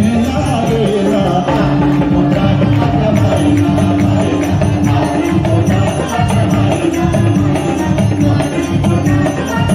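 Live devotional bhajan music played through a stage sound system: drums and jingling hand percussion keeping a steady beat under a long held melody note.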